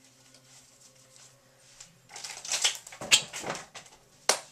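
Playing cards being handled during a card trick: a quiet stretch with a faint steady hum, then rustling from about halfway in, with a sharp snap a little past three seconds and another just before the end.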